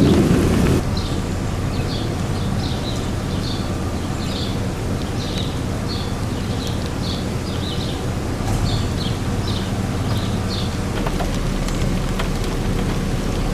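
Steady outdoor background noise with a bird chirping repeatedly, a string of short high calls that stops about ten seconds in. A loud rumble of wind on the microphone cuts off suddenly within the first second.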